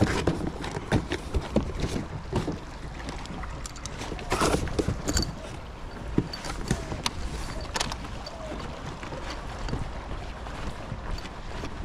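Footsteps and handling knocks as a person gets up and walks across wooden deck boards with a pool brush on a telescopic pole, with irregular taps and thumps over a steady low rumble.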